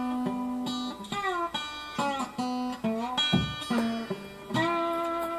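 Background music led by a plucked acoustic guitar playing single notes, several of which slide up or down in pitch.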